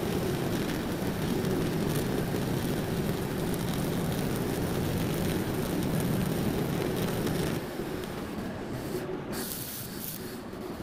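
TIP TIG (hot-wire TIG) welding arc on 904 stainless steel under argon: a steady, noisy hum that stops about seven and a half seconds in. A quieter steady background noise carries on after it.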